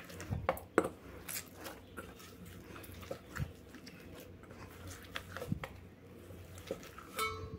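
Hands kneading stiff, oiled wheat-flour dough in a stainless steel bowl: irregular soft squelches and slaps of the dough, with occasional light knocks against the metal bowl.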